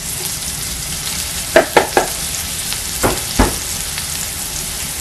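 Chopped onions sizzling in hot oil in a metal pot while a wooden spatula stirs them, knocking against the pot: three quick knocks about one and a half seconds in, then two more about a second later.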